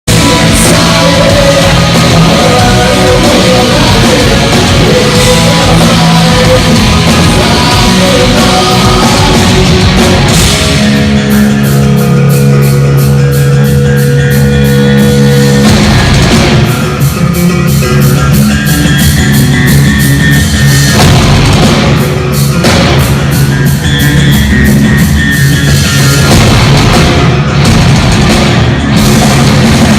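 Loud live heavy rock band playing at full volume: electric guitars, bass and drums, with the drums settling into a fast, even beat about eleven seconds in.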